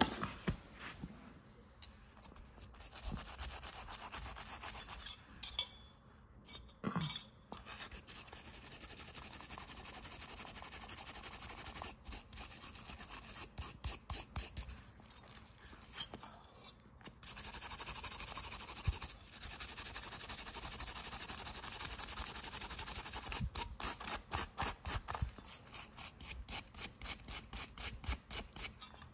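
Wire brush scrubbing the die-cast metal body of a toy truck, with stretches of steady scrubbing and runs of quick back-and-forth strokes, about four a second near the end.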